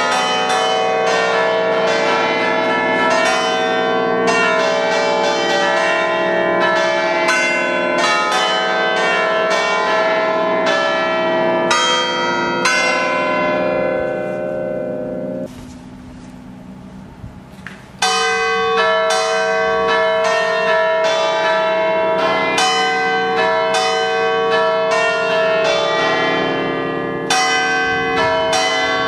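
The eight-bell chime tuned in C, cast by Pasquale Mazzola in 1879, with its bells struck in quick succession to play a tune while hanging still. The notes overlap in a long ringing wash. The ringing breaks off for a couple of seconds about halfway through, then starts again.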